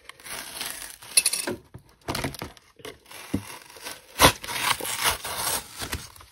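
Plastic blister packaging and cardboard backing of a trading-card pack crinkling and rustling as they are handled and pulled apart, with a few sharp snaps, the loudest about four seconds in.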